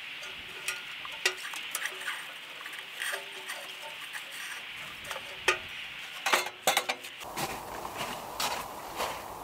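Hand tools and metal parts being handled: scattered light clicks and clinks over a steady hiss, with a cluster of louder knocks about six to seven seconds in. After that the background hiss turns lower and fuller.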